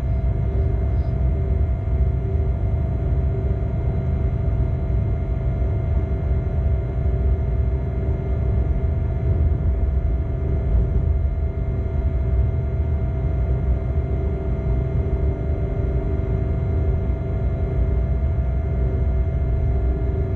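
Locomotive running light, heard from inside its cab: a steady low rumble from the running gear on the track, with steady humming tones from the loco's machinery on top.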